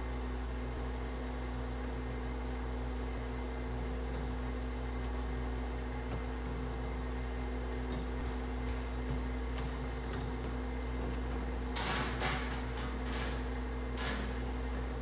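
Steady low mechanical hum. Near the end come a few short clicks and scrapes as the pipe fitting is handled and started onto the gas valve.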